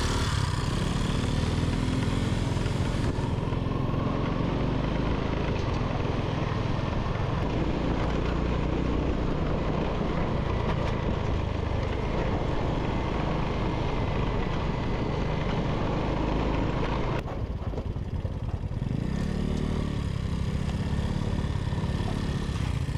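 A motor vehicle running steadily on the move, its engine and road noise forming a continuous low rumble.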